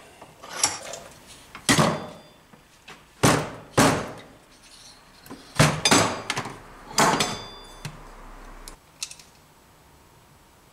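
Metal clunks and knocks as a Motobecane AV7 moped engine is handled, taken out of a bench vise and set down on a metal-topped workbench, some hits ringing briefly. About seven sharp knocks come over the first seven seconds, then it goes quieter.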